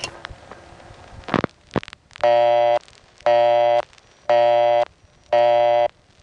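Telephone busy signal from a 1970 New York Bell System exchange, reached by dialing a 9970 number that is permanently busy: a couple of clicks on the line, then, about two seconds in, the busy tone pulsing on and off about once a second, four times.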